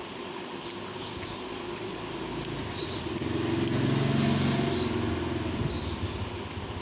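A motor vehicle's engine passing by, swelling to its loudest about four seconds in and fading away again.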